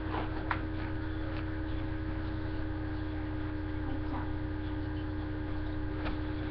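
Steady electrical hum in the recording, with a few faint clicks.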